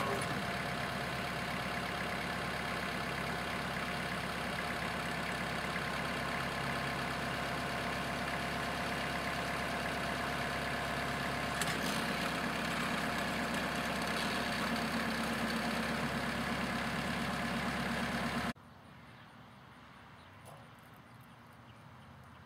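Compact tractor's diesel engine running steadily at idle, with a brief click about twelve seconds in. The engine sound cuts off suddenly about eighteen seconds in, leaving only faint background sound.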